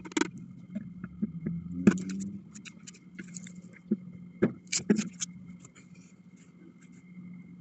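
Irregular sharp clicks and knocks of objects being handled, the loudest about two seconds in and a cluster around the middle, over a steady low hum.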